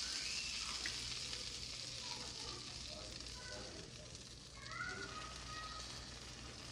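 Pancake batter sizzling on a hot griddle as it is squeezed out of a squeeze bottle: a steady frying hiss that eases off a little over the seconds.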